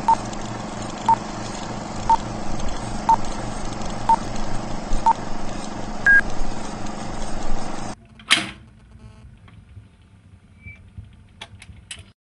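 Film-leader countdown: a film projector running, with a short beep every second, six times, then a higher, longer beep. About eight seconds in the projector sound stops, a stylus lands on a vinyl single with one loud scrape, and a few faint crackles follow.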